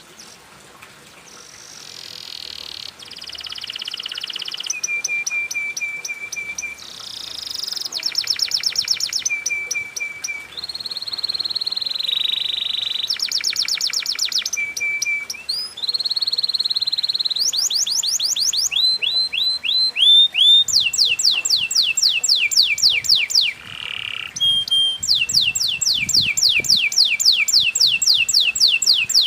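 Domestic canary singing a long, continuous song: fast trills and rolls of rapidly repeated notes, each run changing to a new one every second or two, mixed with steady high whistled notes. The song grows louder over the first few seconds.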